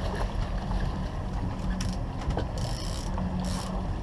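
Fishing reel's drag buzzing in two short bursts as a hooked salmon pulls line off, with scattered reel clicks, over the steady low hum of the boat's motor.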